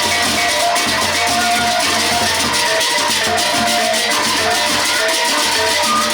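Sasak gendang beleq ensemble playing without pause: large double-headed drums and jangling cymbals under short, repeating tuned metal notes.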